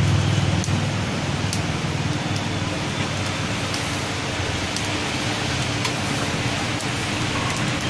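Paneer tikka skewers sizzling over a charcoal grill, a steady hiss with scattered small crackles from the coals. A low hum runs underneath, strongest in the first second.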